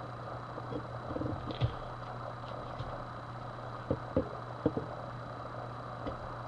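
A wide-bladed X-Acto knife lightly scraping and tapping on a polymer Glock magazine, removing dried excess paint from its stamped numbers: a few short sharp clicks, two close together about four seconds in, over a steady low hum.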